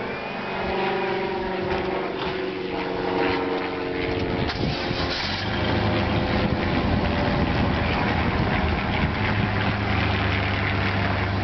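A truck engine running at idle, with a steady low rumble that builds about five seconds in and grows stronger near the end.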